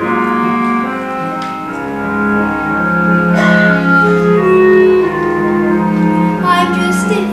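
Instrumental accompaniment to a musical-theatre song, playing sustained chords that change every second or two, with no singing.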